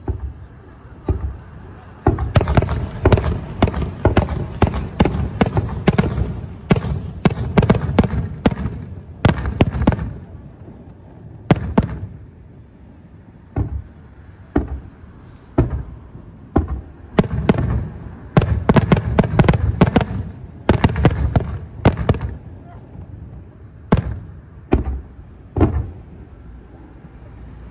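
Fireworks display: aerial shells bursting in rapid volleys of bangs, dense for several seconds at a time, with a sparser stretch in the middle and a few single bangs near the end.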